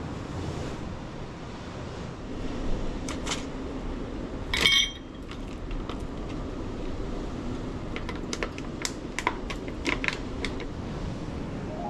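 Small metal camping pots and a mug being handled on rock, with light clinks and taps. One brighter ringing clink comes about halfway through, and a run of quick clicks near the end, over a steady background hiss.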